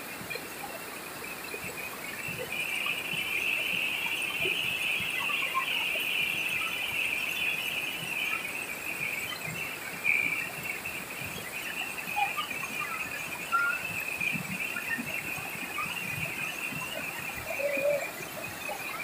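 Insects shrilling steadily in one high band, strongest over the first half, above the even rush of river water pouring over rock cascades, with a few short bird chirps.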